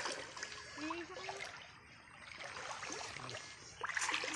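Shallow stream water splashing and sloshing around a person's legs as they wade and sweep a pole through it, louder near the end.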